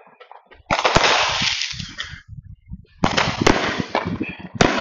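Aerial fireworks going off: a sharp bang about a second in and another about three seconds in, each followed by a second or so of dense crackling that fades. A further bang comes near the end.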